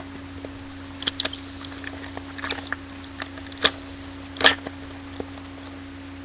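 Trading cards being handled and flipped through by hand: a few short rustles and card snaps, the sharpest two about three and a half and four and a half seconds in, over a steady low hum.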